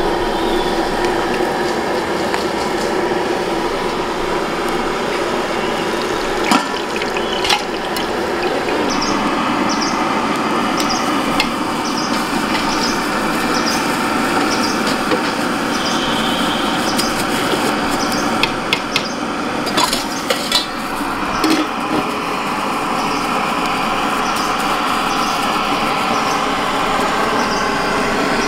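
Steady hissing noise with scattered sharp clicks and knocks, and a run of short, high-pitched pips through the middle.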